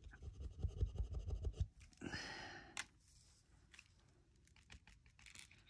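Faint handling of a small alcohol ink bottle on a plastic-covered tabletop: soft knocks and rustles for about a second and a half, a brief scraping hiss, then a small click about three seconds in, followed by a few light ticks.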